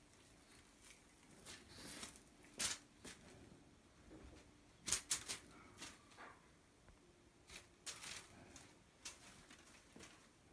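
A cat playing on a quilted comforter: irregular soft rustles and scuffs of fabric as it pounces and scrabbles, with a few sharper brushes about halfway through.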